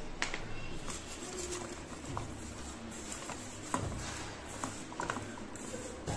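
Hands tossing flour-dusted raw potato sticks in a stainless-steel pan: scattered soft clicks and taps of the sticks against the metal.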